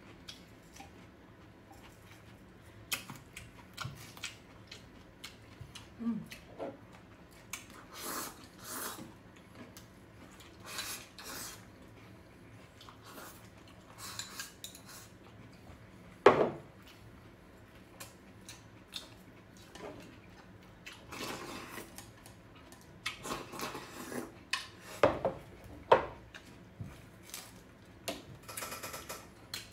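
Chopsticks clicking and scraping against ceramic bowls and plates, with bowls picked up and set down on the table, in scattered short knocks. The loudest knock comes about halfway through, with two more sharp ones near the end.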